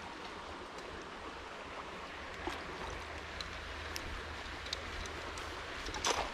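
Small creek running steadily, with a few faint ticks, and a hooked trout splashing at the surface near the end.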